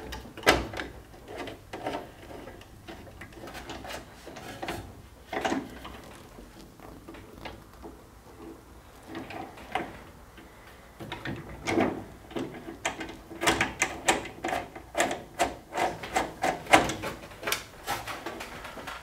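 Irregular small clicks and taps of hardware and hand tools being handled against a thin aluminium aircraft panel. They are scattered at first and come several a second in the last several seconds.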